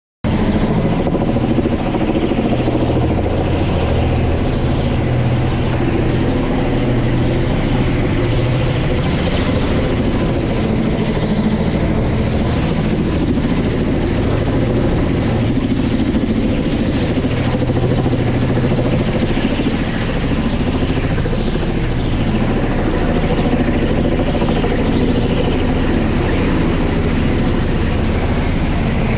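Kamov Ka-32 helicopter flying overhead: the steady, even sound of its coaxial contra-rotating rotors and twin turboshaft engines.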